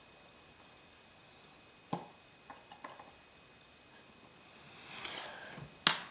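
A few small sharp clicks and taps of small tools and parts on a phone being reassembled, the loudest about two seconds in and another just before the end, with a brief soft rustle near the end.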